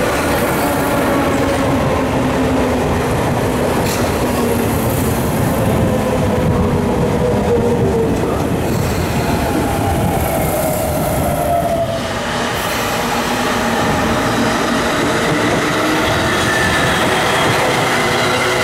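Sotetsu electric commuter train running past at close range: a steady rumble of wheels on rail, with whining tones that slide in pitch.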